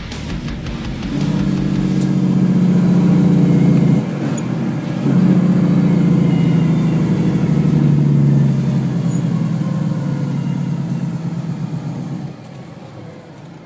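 Heavy truck's diesel engine working hard under load, easing off briefly about four seconds in, then pulling again before dying away near the end.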